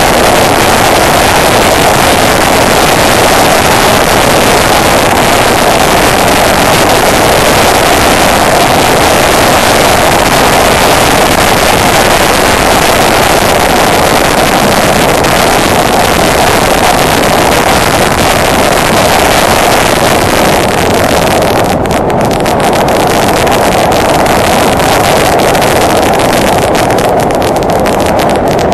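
Honda Deauville NT650V motorcycle riding at speed, heard from an onboard camera: a steady, loud rush of wind and road noise over the microphone with the ride's drone underneath. Near the end the high hiss drops out in brief gaps.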